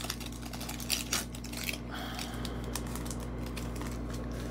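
Foil wrapper of a Panini Prizm basketball card pack being torn open, a rapid run of crinkles and crackles for about the first two seconds. A steadier rustle follows as the stack of cards is slid out and handled.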